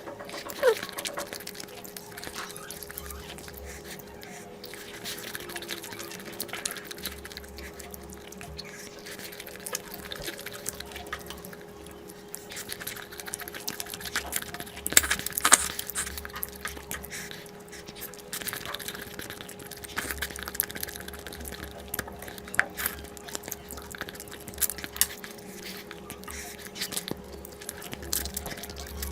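Close-up wet eating sounds of a person eating curry and rice: chewing and smacking, with a scatter of short sharp clicks, over a faint steady hum.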